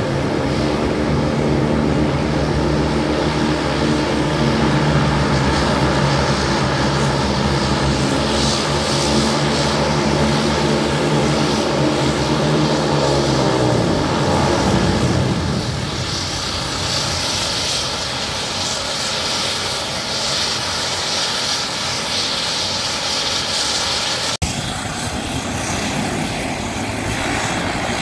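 A CN-235-220's twin General Electric CT7 turboprop engines running on the ground with the propellers turning: a steady, deep propeller drone under a high turbine whine. About halfway through, the deep drone fades and the high whine dominates. The sound breaks off for an instant a few seconds before the end.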